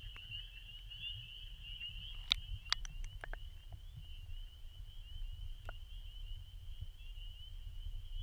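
Chorus of spring peepers: many short, high peeps overlapping into a steady, slightly wavering trill, over a low rumble. A few sharp clicks come about two to three seconds in, and one more near six seconds.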